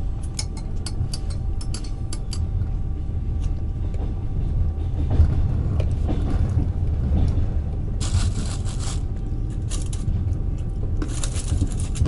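Passenger train running, heard from inside the carriage: a steady low rumble, with a run of small clinks and rattles in the first couple of seconds and two short bursts of hissing noise later on, one about eight seconds in and one near the end.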